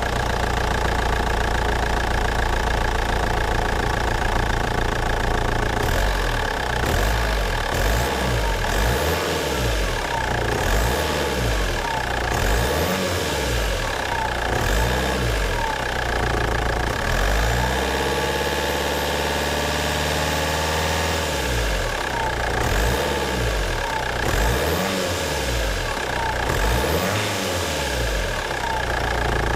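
Alfa Romeo 147 1.9 JTDm 8-valve 120 hp turbodiesel running with a downpipe, an open exhaust with no silencer and a cotton panel air filter. It idles with diesel clatter, and from about six seconds in it is revved in repeated short blips, with one longer rise in revs about two-thirds of the way through.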